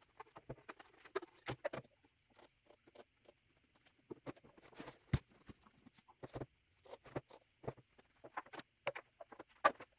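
Scattered light clicks and knocks of black ABS and white PVC pipes and fittings being handled and shifted on sawhorses, irregular and quiet, with one sharper knock about five seconds in.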